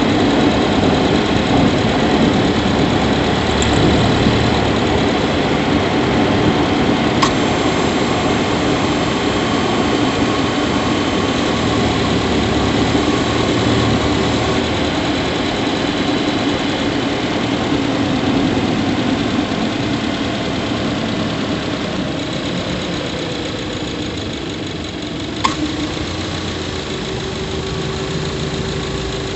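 Subaru Levorg 1.6GT-S's turbocharged 1.6-litre flat-four engine running while the car is driven, heard up close from inside the engine bay near the intake. Two short sharp clicks stand out, one about 7 seconds in and one near the end.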